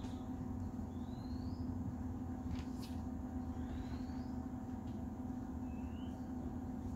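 A steady low machine hum, with three short, thin rising whistles and a brief crackle about three seconds in.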